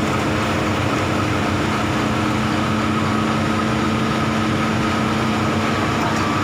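Excavator's diesel engine running steadily, with a constant hum and a higher steady whine above it.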